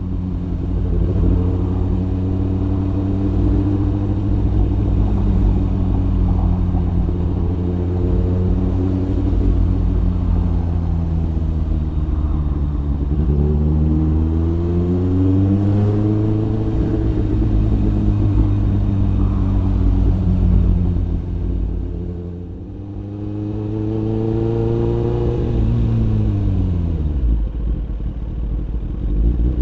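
Kawasaki ZX-9R's inline-four engine running under a rider's helmet camera. It holds steady revs for a while, then revs up and falls back through the gears several times. It eases off briefly about two-thirds of the way in, before pulling up again and dropping back near the end.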